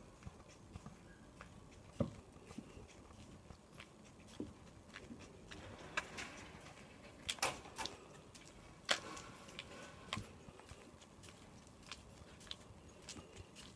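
Faint footsteps of a person walking on an asphalt lane, with scattered sharp clicks and knocks, a few louder ones in the middle.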